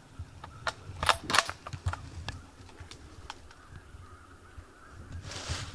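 A few sharp clicks and knocks, the two loudest a little over a second in, with light rustling near the end: gear or clothing being handled.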